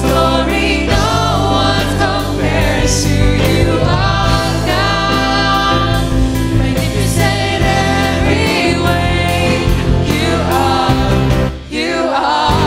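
Christian worship song sung by a youth group of singers over accompaniment with a steady beat.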